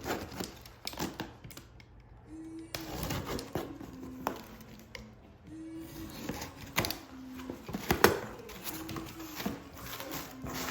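Irregular light clicks and taps of small objects being handled, one louder knock about 8 seconds in, over a faint low two-note pattern repeating every second or two.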